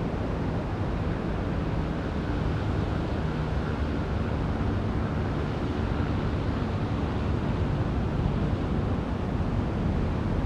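Steady low wind rumble on the camera microphone.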